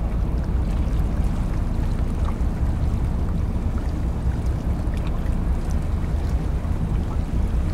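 Harbour tugboat's diesel engines running with a steady low drone as it works alongside a departing container ship.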